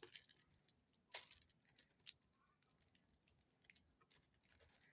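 Faint clicks and light taps of small kit items being handled, such as bagged diamond painting drills and plastic tools. The taps are scattered, and the clearest comes about a second in.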